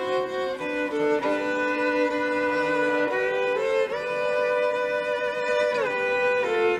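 Violin playing a slow melody in long held notes, often two notes at once, with a slide up into a new note about four seconds in and a slide down near six seconds.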